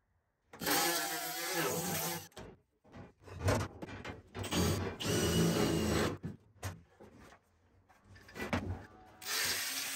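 Cordless drill run in several bursts against rusty sheet-steel cab panel. Near the end a steadier power-tool sound starts, the angle grinder that then cuts the panel.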